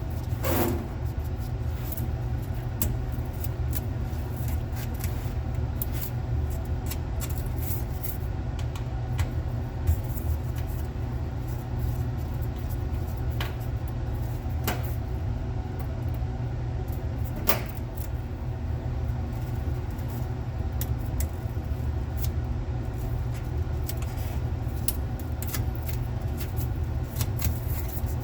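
Small scattered clicks and taps of a screwdriver and tools on a hard drive's cover screws, a few of them sharper ticks, over a steady low hum.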